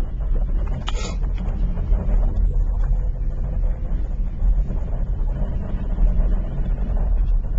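Steady low rumble of a car driving, with a brief hiss about a second in.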